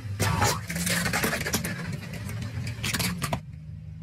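A car tyre rolling over plastic hand balloon pumps and crushing them: a dense run of sharp cracks and crunches that stops about three and a half seconds in, over the car's engine running low and steady.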